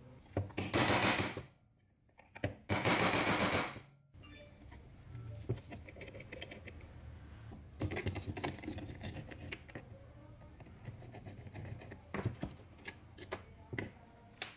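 Two loud bursts of rapid, machine-like metal strikes, each about a second long, followed by a quieter run of rapid taps and then a few separate clicks and knocks. The strikes come from a punch tool working pins out of the old electric chainsaw's housing, which sits on steel V-blocks.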